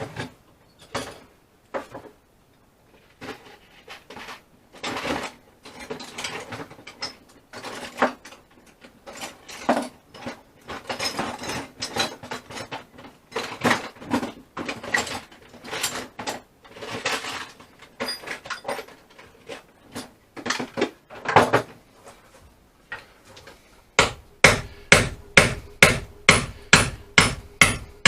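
Hammer blows knocking on the wooden boat's timbers as a rotten cross floor is worked out: irregular knocks and scrapes at first, then near the end a fast, even run of ringing strikes, about three to four a second.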